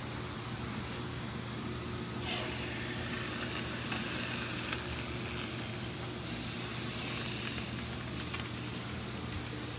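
A hot soldering iron sizzling and hissing on fluxed galvanized sheet metal as a seam is soldered. The hiss starts about two seconds in, grows louder for a couple of seconds near the end, then fades, over a steady low hum.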